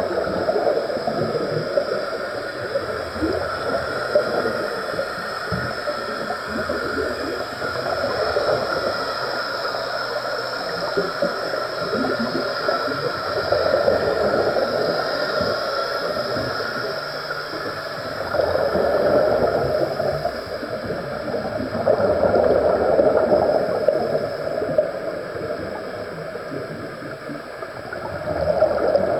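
Scuba regulator exhaust bubbles gurgling underwater, rising in bursts every four or five seconds and getting louder in the second half, over a steady underwater hiss with a faint constant whine.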